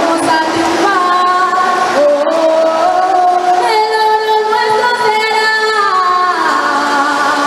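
A woman singing long held notes over musical accompaniment, the melody climbing to higher notes about halfway through and then stepping back down.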